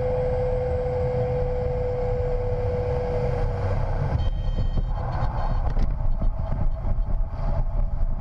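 Pilatus Porter's engine and propeller running on short final, with a steady whine that fades out about three and a half seconds in. From about four seconds the sound turns uneven and jolting as the wheels touch down and roll over the rough dirt and grass airstrip.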